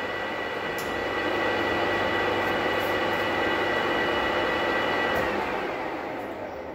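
Manual metal lathe running under power on a thread-cutting pass, a steady mechanical running sound with a high held tone over it. From about five seconds in the tone stops and the sound fades as the spindle is switched off and the chuck coasts down before being reversed.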